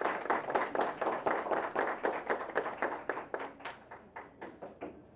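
Small group of people applauding, the claps thinning out and fading away over the last couple of seconds.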